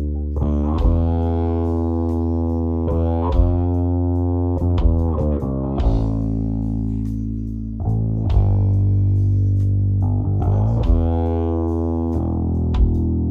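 Isolated electric bass guitar track playing long held notes that change every one to three seconds, some joined by sliding pitch glides.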